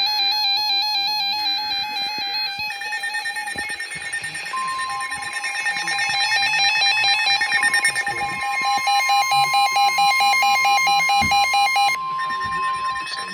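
Several NOAA weather radios sounding their alerts together, with layered repeating electronic beeps. About four and a half seconds in, the steady 1050 Hz weather-radio warning alarm tone joins them and holds unbroken, marking a warning-level alert.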